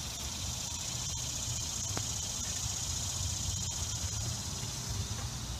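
Steady, high-pitched insect drone that fades near the end, with a low rumble underneath.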